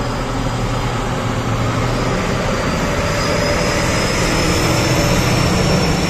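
Heavy diesel engine of an XCMG XDE260 mining dump truck running steadily as the loaded truck drives past close by. The sound grows slightly louder toward the end, with a faint high whine over it.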